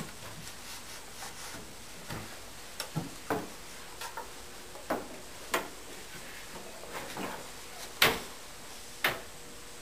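Scattered knocks and bumps of a wooden sewing cabinet being handled as it is turned right side up, with one loud thump about eight seconds in as it is set down on its casters.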